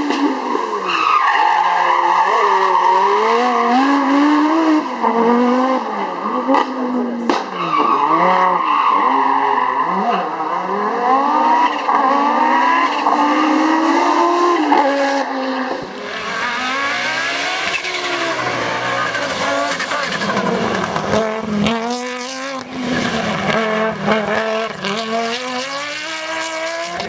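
Audi Quattro S1 E2 rally car's turbocharged five-cylinder engine revving hard and dropping again and again through gear changes and lifts, with occasional sharp cracks from the exhaust. From about halfway a rushing noise joins the engine.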